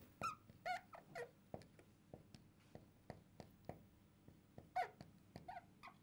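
Felt-tip marker writing on a glass lightboard: short squeaks that slide in pitch as the tip drags on the glass, clustered in the first second and again near the fifth second, with soft taps and strokes of the tip between them.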